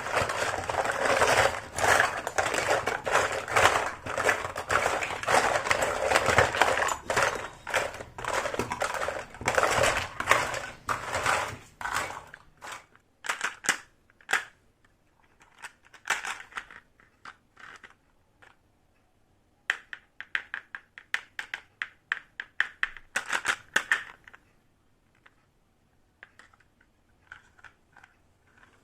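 Toy kitchen set being unboxed: its packaging rustles and crinkles densely for about twelve seconds. Scattered light clicks and taps of small plastic pieces follow, with a quick run of them later on and a few faint taps near the end.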